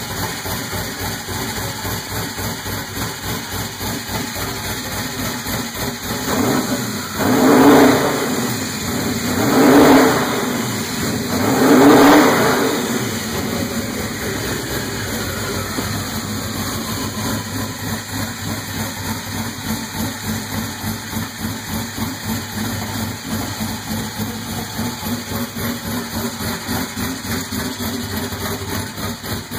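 Twin-turbo 4.6-litre two-valve Ford V8 on MMR Stage 3 turbo cams idling with an uneven, pulsing lope. It is revved three times in quick succession about a third of the way in, each rev rising and falling back to idle.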